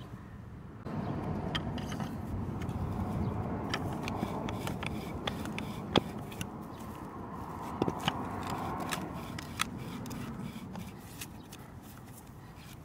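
Hand auger drill bit boring into a wooden log, turned by hand. It makes a continuous grinding scrape as the bit cuts the wood, starting about a second in, with occasional sharp cracks.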